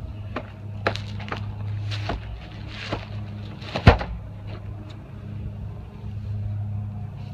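A cardboard box holding an inflatable boat's aluminum floorboards is handled, with a few light knocks. It is set down on grass with one heavy thump about four seconds in. A steady low hum runs underneath.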